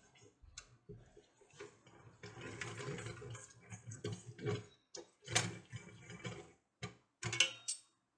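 Wooden dal masher being worked through cooked green gram in an aluminium pot: faint, irregular knocks and clicks of the wood against the pot, with a few louder knocks in the second half.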